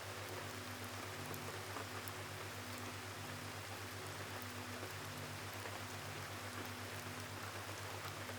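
Steady gentle rainfall, with a faint low tone pulsing slowly beneath it.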